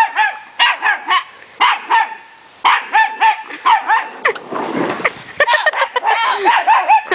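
Dachshund puppy barking over and over, several barks a second, with a short pause about two seconds in. Midway a brief rushing noise joins the barks as a child slides down a plastic playground slide.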